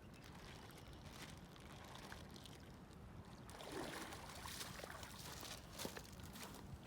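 Faint trickling and pouring of water, swelling briefly about halfway through, with a few light clicks of handling near the end.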